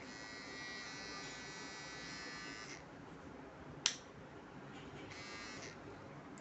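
Kemei KM-6332 battery hair trimmer's small motor running with a steady high buzz for nearly three seconds, then stopping. A single sharp click follows, then the trimmer runs again for about half a second.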